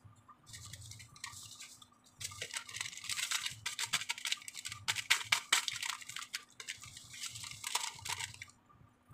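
Plastic Rasna drink-powder sachet crinkling as it is handled and snipped open with scissors: bursts of crackling and sharp clicks through the middle seconds.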